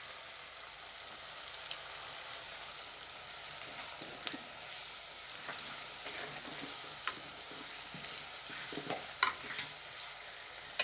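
Sliced onions, green chillies and curry leaves sizzling steadily in hot oil in a pot, with a steel spoon stirring them and now and then clinking against the pot, the sharpest clink about nine seconds in.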